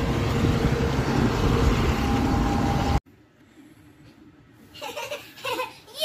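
Farm tractor running steadily while towing a passenger wagon, heard as a loud, even rumble and noise that cuts off suddenly about halfway through. Near the end a child's short laughs and squeals.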